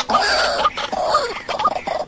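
White-breasted waterhen (ruak-ruak) calling: a loud, continuous run of short repeated notes, a few each second.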